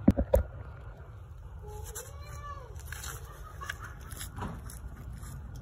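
Toyota Tacoma idling, a steady low exhaust rumble through an aftermarket muffler that the owner believes is a Flowmaster DBX or similar. Three sharp knocks come in the first half-second.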